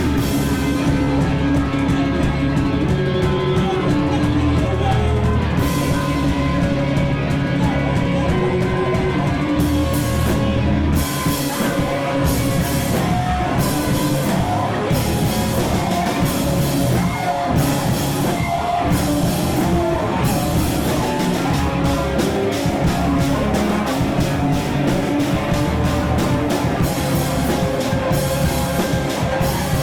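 A rock band playing live: guitar over a drum kit. The first stretch is held low notes with occasional cymbal hits, and about eleven seconds in the drums pick up into fast, steady cymbal and drum strikes.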